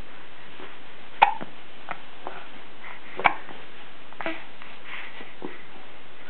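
Hiccups: three short, sharp ones, the first two about two seconds apart and the third fainter.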